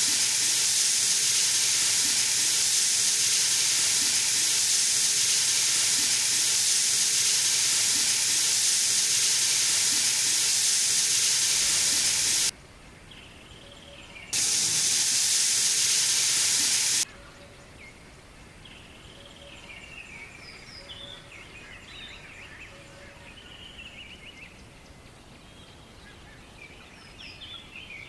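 Loud steady hissing from cooking, which cuts off abruptly about twelve seconds in, returns briefly and stops again around seventeen seconds. After it, birds chirp faintly in the background.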